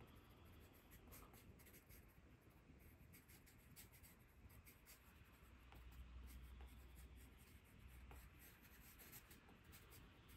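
Pencil scratching on paper in many short, quick strokes as a design is sketched by hand, over a faint steady low hum.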